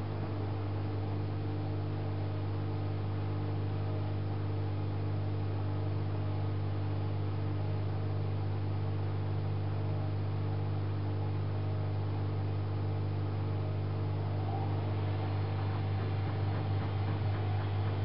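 AEG Öko-Lavamat 8650 front-loading washing machine in the wash phase of a 60 °C coloureds cycle, its drum turning the wet laundry. It makes a steady low hum with a soft even wash noise above it, growing slightly louder near the end.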